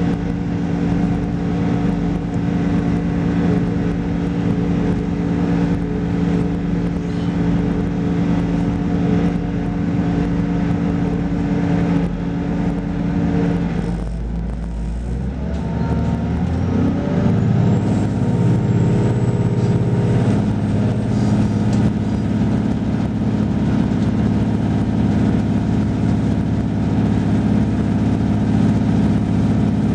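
Diesel railcar's engine running steadily as the train pulls away, heard from inside the train. About halfway through, the engine note drops off briefly, then climbs again in rising tones as it accelerates.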